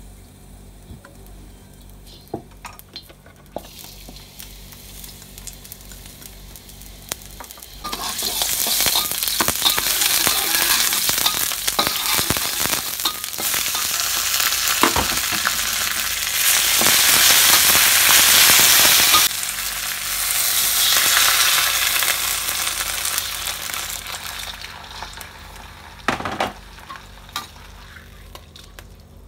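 Spinach and chopped garlic stir-frying in hot oil in a steel wok: a sizzle that starts suddenly about a quarter of the way in, is loudest in the middle and dies down near the end. A metal spatula scrapes and clicks against the pan throughout.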